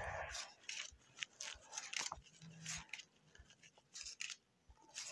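Trading cards being flipped through by hand: a string of soft, irregular card slides and snaps as each card is moved from the front of the stack to the back.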